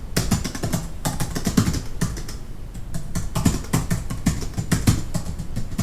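Fast typing on a computer keyboard heard from some distance, a rapid, irregular run of key clicks.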